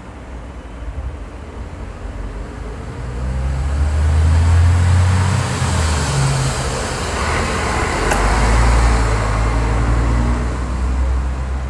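Road vehicle engine rumble passing by, building about three seconds in, loudest around the middle and easing near the end, with one sharp click about eight seconds in.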